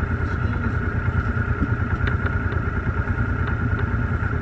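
Honda V-twin motorcycle engine idling steadily, with a few light clicks.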